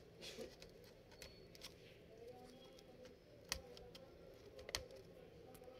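Faint small clicks and scrapes of the CMOS battery connector being worked loose from a laptop motherboard, with two sharper clicks in the second half.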